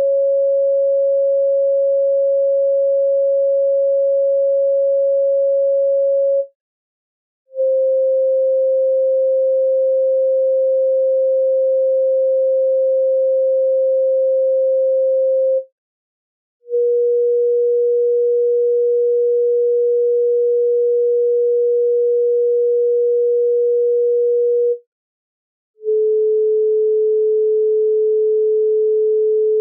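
Chakra frequency tones in 432 Hz tuning: steady pure sine tones, each held for about eight seconds and each a little lower than the one before, separated by short silences of about a second.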